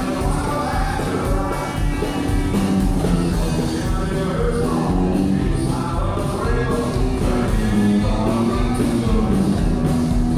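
Country song with a singer over a steady beat.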